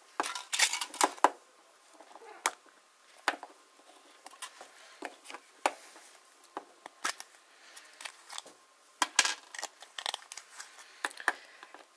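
Foil wrapper of a Kinder Surprise egg crinkling in the first second or so, then scattered sharp clicks and taps as the yellow plastic capsule is handled and opened and the small plastic toy parts are set down on a table.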